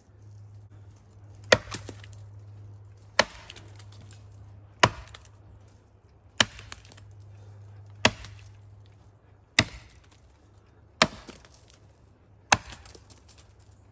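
A heavy homemade splitting axe (the 'wood bullet') chopping into the trunk of a standing tree: eight sharp blows, evenly paced about every second and a half, cutting out the top of the felling notch.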